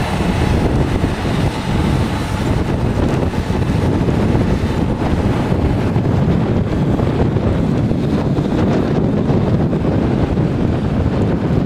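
Wind buffeting the microphone, with a tractor engine running under load beneath it as it pulls a tillage implement through the soil.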